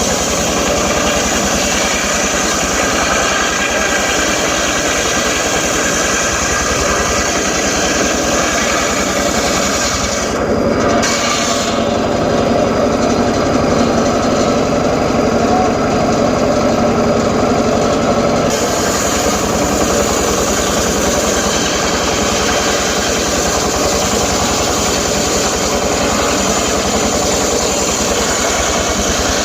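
Homemade circular saw rig running steadily while ripping teak. For about eight seconds midway the sound turns deeper and loses its high end, then goes back to how it was.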